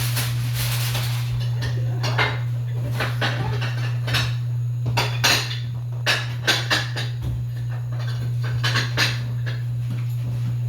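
Kitchen dishes and utensils clinking and knocking in a scattered series of short clatters, over a steady low hum.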